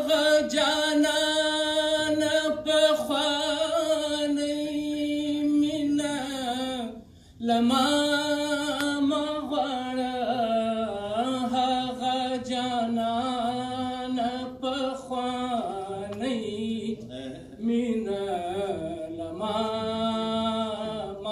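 A man's voice singing or chanting unaccompanied in long held, wavering notes, breaking off once for breath about seven seconds in.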